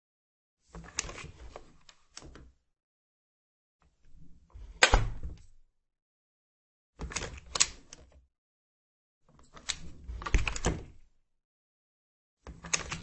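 Wooden office door being opened and closed over and over: latch and handle clicks with a low thud as the door meets the frame. The sound comes in five separate bursts with silence between, the sharpest hit about five seconds in.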